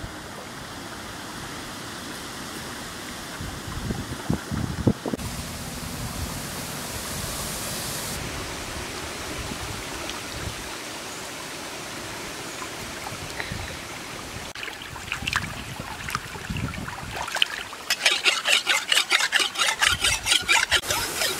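Steady rush of stream water. Near the end, a machete blade is scraped back and forth on a wet rock in quick, rhythmic strokes as it is sharpened.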